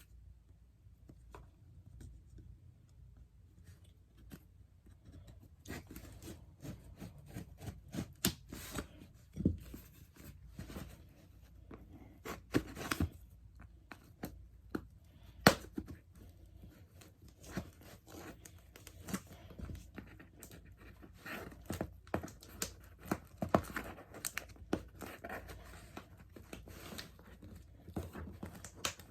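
A mail package being opened by hand: irregular tearing, crackling and rustling of the packaging, starting about five seconds in and going on in uneven bursts.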